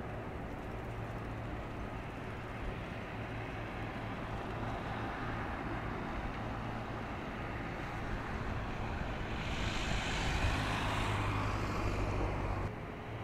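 Steady low engine hum over traffic noise; from about eight seconds in, a road vehicle passing close grows louder, then the sound cuts off suddenly near the end.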